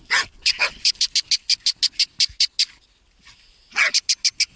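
A laika giving quick, high-pitched yips, about six a second, with a few squeals that fall steeply in pitch. The yips break off for about a second past the middle, then resume. It is a hunting dog's excited yelping as it works a hole in the ground.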